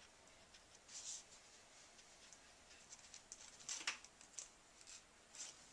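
Faint dabs and scratches of a watercolour brush on textured paper as a rough tree outline is painted: short soft strokes about a second in, then a cluster of them a few seconds later, the loudest near the middle of that cluster.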